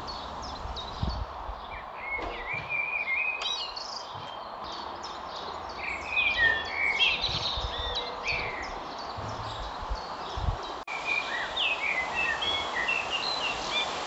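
Small songbirds chirping and singing in quick, high, gliding notes over a steady outdoor background hiss, busiest in the middle, with a momentary dropout about eleven seconds in.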